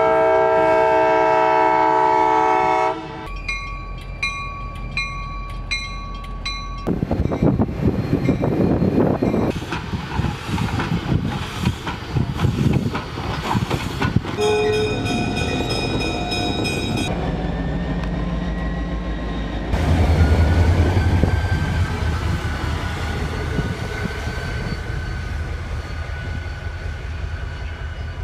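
A run of railroad sounds. A locomotive air horn sounds a loud chord for about three seconds, followed by ringing high tones with a regular clicking. Next comes the rumble of a passing train, then a short steam whistle blast about halfway through, and finally a steady low locomotive rumble.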